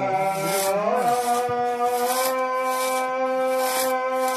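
Two-man crosscut saw rasping back and forth through a tree trunk, about two strokes a second. From about a second in, a long, steady cow's moo sounds over the sawing.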